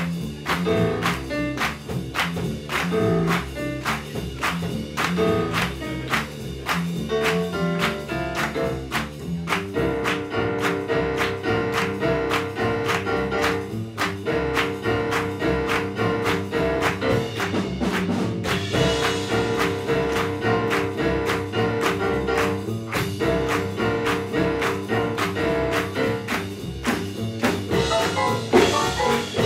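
Jazz big band playing live: saxophone and trombone sections over upright bass and drum kit. It opens with a rhythmic passage of short, punchy chords; from about ten seconds in, the horns hold long sustained chords in phrases of a few seconds each.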